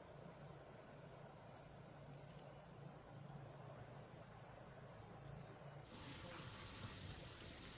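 Crickets chirring in a steady, faint, high-pitched trill. About six seconds in the sound thins to a single steadier high tone.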